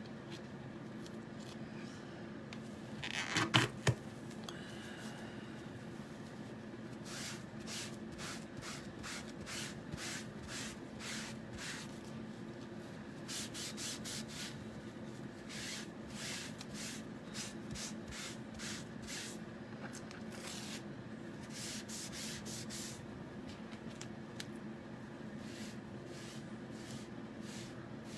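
A wipe rubbed in quick short strokes over a plastic Chalk Couture transfer stencil on a cutting mat, cleaning the ink off it. A brief louder knock comes about three seconds in, and a faint steady hum runs underneath.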